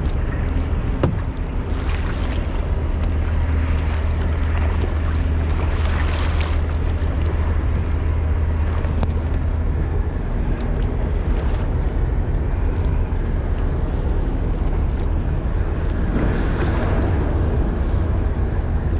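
Wind rumbling on the microphone over water lapping around a kayak, with a few paddle strokes splashing. A steady low hum runs through the first half and fades after about ten seconds.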